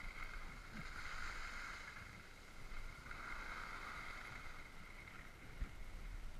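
Skis sliding over snow: a steady hiss that swells about a second in and again around the middle, with wind rumble on the microphone.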